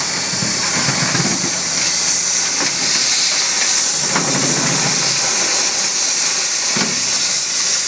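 Cutting torch hissing steadily as it burns through a steel collar on a hydraulic cylinder fitting, with a few faint pops along the way.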